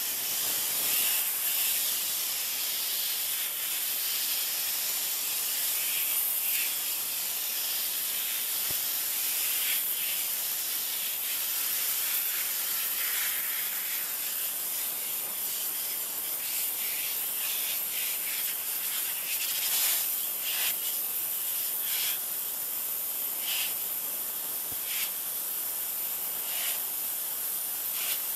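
Thin, steady hiss of a 3000 psi pressure washer's water jet spraying a plastic lawn chair, with brief brighter swells as the spray sweeps the slats. It comes through a failing camcorder microphone that passes only the high end, so no engine is heard.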